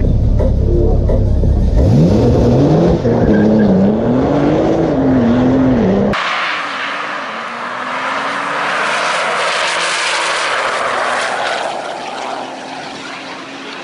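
Porsche 911 Turbo 3.8 twin-turbo flat-six launching and accelerating hard. The engine note climbs and drops back at each upshift, about three times. About six seconds in the sound cuts to the car at speed heard from further off: a steady rushing hiss with a faint engine note slowly rising.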